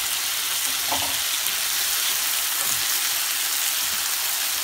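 Sliced zucchini, mushrooms and sweet peppers sizzling steadily in hot grapeseed oil in a pan, with a spatula turning them through a freshly added sauce near the end.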